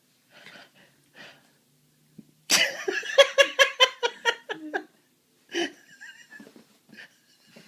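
A burst of laughter: a quick run of about ten high-pitched ha-ha pulses lasting about two seconds, starting about two and a half seconds in. Faint breathing sounds come before and after it.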